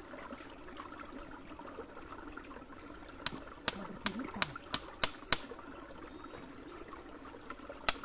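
Small forest stream trickling steadily over rocks. In the middle comes a quick run of about seven sharp clicks: stones knocking together as they are picked through by hand.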